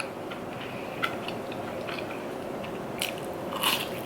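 A person biting and chewing crunchy food close to the microphone, with faint soft clicks at first and a few louder crunches about three seconds in.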